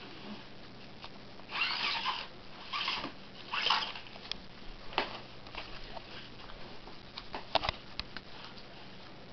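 Cat rolling on a wooden floor, biting and clawing a cardboard catnip toy with its paper packaging: three short rustling scrapes in the first four seconds, then scattered light clicks and taps, with a quick cluster of them near the end.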